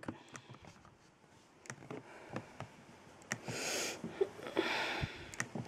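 Acer laptop touchpad being clicked with a fingertip: scattered sharp clicks, about half a dozen, with two short stretches of soft hiss in the second half.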